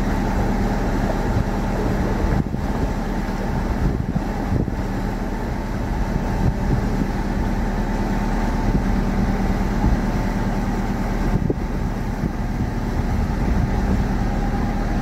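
A narrowboat's engine running steadily at a constant speed, a low even throb with no change in pace.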